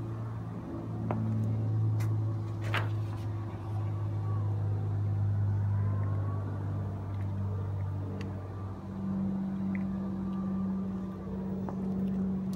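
A vehicle engine running steadily with a low hum, stepping up to a higher pitch about eight and a half seconds in, with a few sharp clicks over it.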